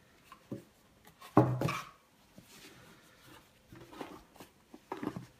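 Handling noise from a cardboard gift box and a cloth dust bag: scattered soft knocks and rubs, the loudest a knock about a second and a half in.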